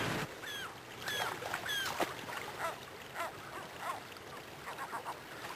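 Gulls calling repeatedly over the steady rush of river water, the calls loudest in the first two seconds and fainter after. One sharp click about two seconds in.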